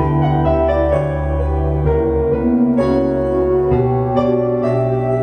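Piano music with sustained notes and chords, played back through a single-ended amplifier driven by Eimac 250TH transmitting tubes.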